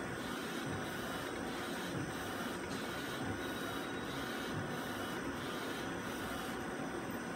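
ArtisJet UV flatbed inkjet printer printing: the print-head carriage shuttles back and forth over the bed, a steady mechanical whir and hiss that swells and dips in a regular rhythm.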